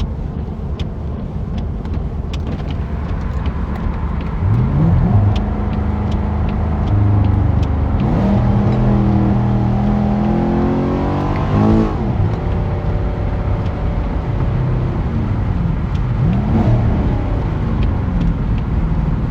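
Chevrolet C7 Corvette's V8 pulling hard through the gears, the engine note climbing and then dropping back at each shift, with a couple of shorter rises and falls as it speeds up and eases off, over steady road noise.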